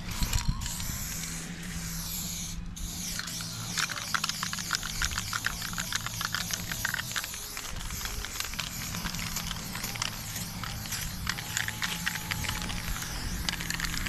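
Aerosol spray paint can hissing as it sprays paint onto a concrete wall, in many short spurts from about three seconds in.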